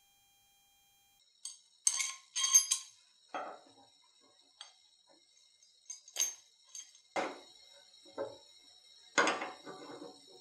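Clinks and knocks of knife-handle parts (stacked handle spacers and a nut on the tang) being handled and fitted on a wooden workbench. There are two sharp metallic clinks about two seconds in, then scattered duller knocks, the strongest about seven and nine seconds in.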